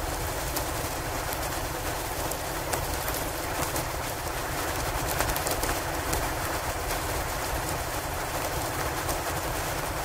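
Steady rushing noise of a blizzard outside, with scattered small crackles of a log fire burning in a fireplace.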